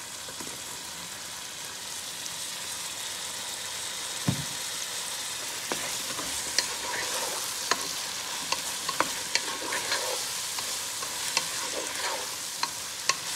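Eggplant pieces, kept in water, sizzling in hot oil with onions and tomatoes in a nonstick pan. There is a dull thump about four seconds in, and from about halfway a wooden spatula stirs the pan, with scraping and repeated sharp knocks against it.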